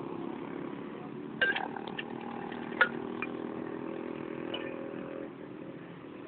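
An engine running steadily, then fading about five seconds in, with a few sharp clacks over it; the loudest clacks come about one and a half and three seconds in.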